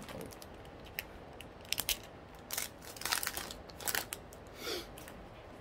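Foil Pokémon booster pack wrapper crinkling and crackling as it is handled and opened, a string of short, irregular crackles.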